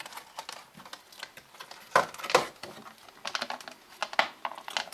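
Clear plastic clamshell packaging for two RAM sticks being flexed and pried open by hand, giving a run of small clicks and crackles, with two loud plastic snaps about two seconds in.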